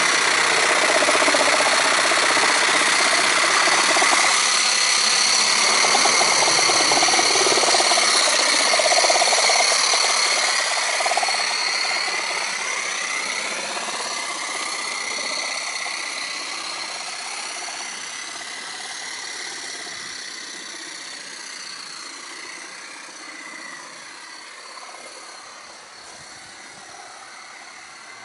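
Coal-fired model vertical-boiler steam locomotive running, steady and loud for about ten seconds, then fading away as it moves off along the track.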